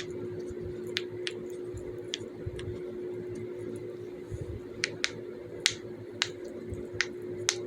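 Silicone pop-it fidget toy being pressed, its bubbles popping with about ten sharp, irregular clicks, more often in the second half, over a steady low hum.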